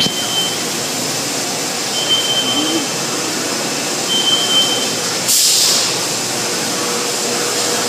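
Automatic car wash equipment running with a steady rushing of water spray and machinery. A short high beep sounds three times about two seconds apart, and a sudden burst of spray hiss comes in about five seconds in.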